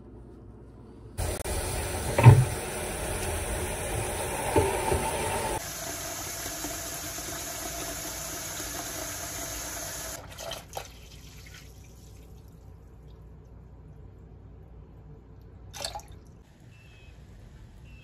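Water from the sink tap running into a red bucket, starting about a second in and shutting off about ten seconds in, with a sharp knock a couple of seconds in. A couple of faint clicks follow once the water stops.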